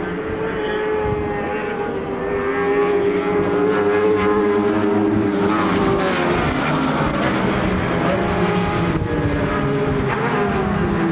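Racing motorcycles running on the circuit, several overlapping engine notes whose pitch rises and falls as the bikes accelerate and shift.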